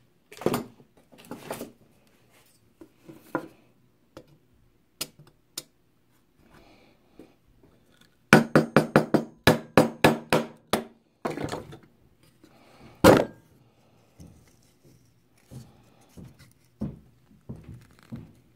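Hand tools knocking and tapping on wood at a workbench while prying apart wooden handle pieces stuck together with too much crazy glue. Scattered single knocks, then a little past the middle a rapid run of about a dozen sharp taps with a short ring, and one loud knock soon after.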